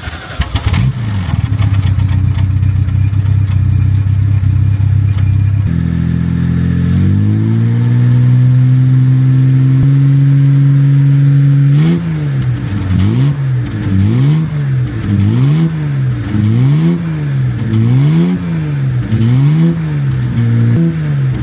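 The Jaguar MKII's engine running at a steady idle. Its pitch steps up about six seconds in and climbs to a higher steady speed, then from about halfway it is revved up and let fall back repeatedly, about once a second.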